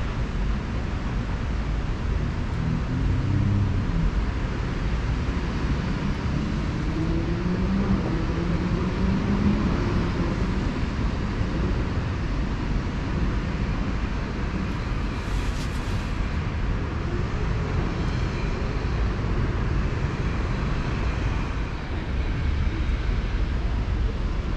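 Steady rumble of distant city traffic, with a brief hiss about fifteen seconds in.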